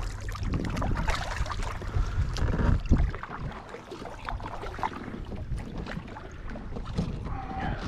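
Wind buffeting the microphone in gusts, with water splashing and sloshing around a kayak.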